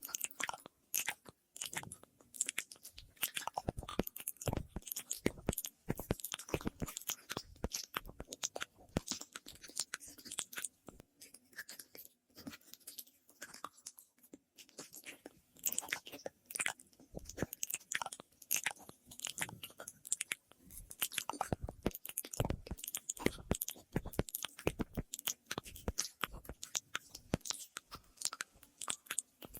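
ASMR mouth sounds close to the microphone: rapid, irregular wet clicks and smacks of the lips and tongue, run through an echo effect.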